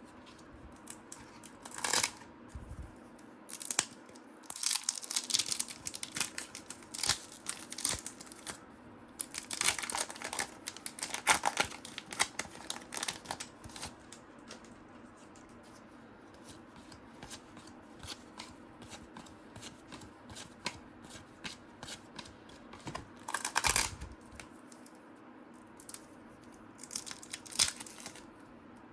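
Trading cards being handled and flipped through by hand: repeated short rustles and scrapes of card stock sliding over card, with a few louder crinkling bursts, the loudest a little before the end.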